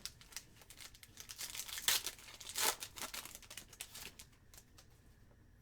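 A foil trading-card pack wrapper being torn open and crinkled: a run of crackling, with two louder rips about two seconds in and a little later.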